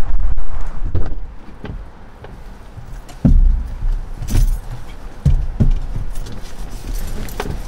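A person leaning into a pickup truck's cab through the open driver's door and handling gear: several separate thumps and knocks with rustling and a jangle of keys. A low rumble fills the first second.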